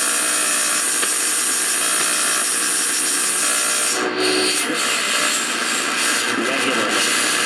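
RCA AR-77 tube shortwave receiver on the AM band putting out steady harsh static and hiss between stations, with faint tones breaking through about four seconds in.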